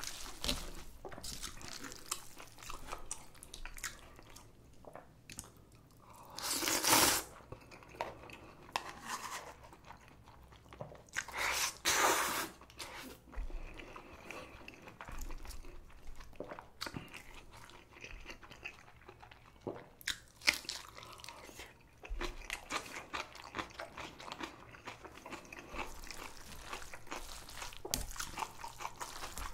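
Close-up eating sounds of spicy cold noodles and kimchi: steady chewing and crunching, broken twice by a loud slurp of about a second, a few seconds apart.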